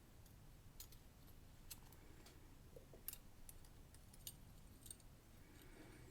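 Faint, scattered light metallic ticks and clicks of small lock pins and a tool being worked into a padlock core, with one sharper tick about three seconds in and a quick cluster near the end.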